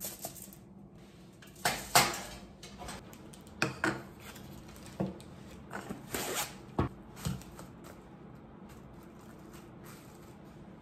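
Dishes and kitchen utensils clattering and knocking while breakfast is prepared: a string of clinks and knocks over about seven seconds, the loudest about two seconds in.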